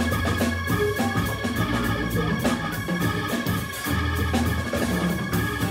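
Organ trio playing a funk tune: a Hammond B3 organ through a Leslie speaker holds sustained chord tones over electric guitar and a drum kit keeping a steady groove.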